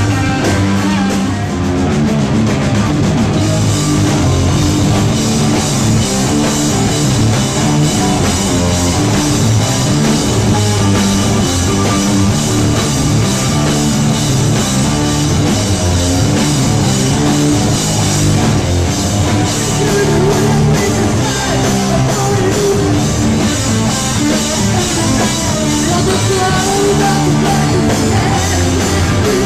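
Live rock band playing loudly: electric guitars and a drum kit.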